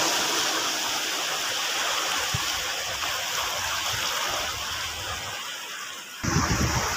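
Shallow sea waves washing in over rocks, a steady rushing hiss of water and foam. About six seconds in, a louder, uneven low rumble starts suddenly.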